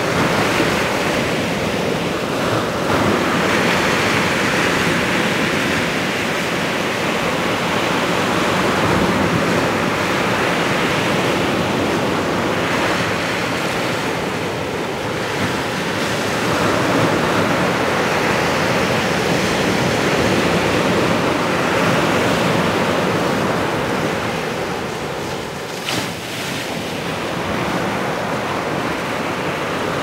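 Ocean surf: small waves breaking and washing up a sandy beach, a continuous rushing that swells and eases with each wave. There is a single short tick a few seconds before the end.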